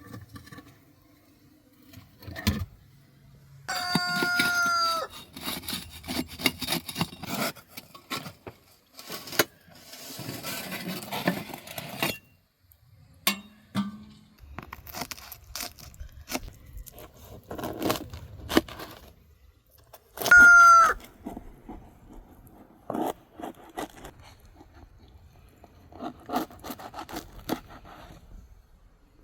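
A rooster crows twice, a longer crow about four seconds in and a shorter, louder one past twenty seconds. Between the crows come scattered knocks, clicks and scraping sounds.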